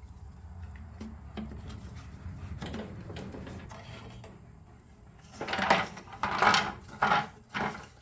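Small metal parts and tools being handled on a workbench: faint clicks over a low hum, then a run of louder clinks and clatter starting about five seconds in.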